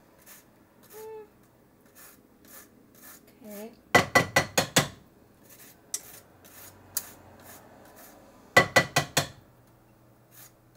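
Orange peel being grated with a handheld zester: quick rasping strokes, with two louder runs of about half a dozen fast strokes, one about four seconds in and one near the end.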